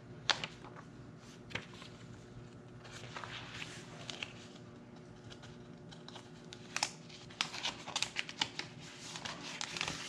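Paper brochure and plastic sheet-protector sleeve rustling and crinkling as a folded brochure is handled and slid into a ring binder, with a few sharp ticks and a quicker run of rustles over the last few seconds.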